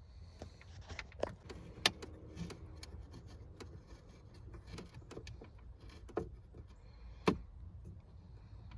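Scattered clicks and knocks of parts and tools being handled during a car stereo installation, with sharp knocks about two seconds in and again about seven seconds in, over a low steady hum.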